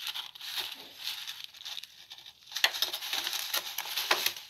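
Pet rat moving through loose granular bedding in a plastic tray with a treat in its mouth: a scattered crunching rustle of the granules that becomes denser and louder about two and a half seconds in.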